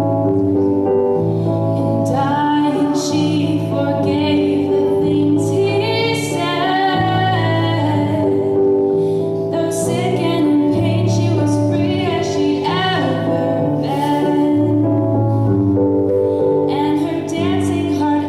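Live music: a woman singing a slow song with instrumental accompaniment.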